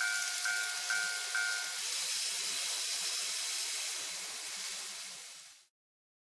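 Electronic warning bell of a Tomix Automatic Level Crossing II model crossing, ringing with just over two dings a second and stopping about two seconds in. A steady hiss runs underneath, then fades and cuts off near the end.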